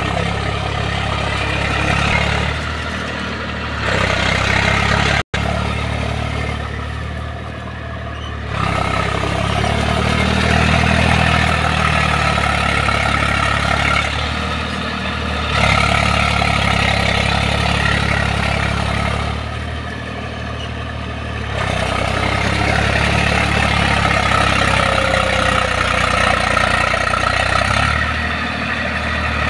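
Eicher tractor's diesel engine running under load as it drags a cage-wheeled cultivator through wet paddy mud, its note rising and easing every few seconds. The sound cuts out for an instant about five seconds in.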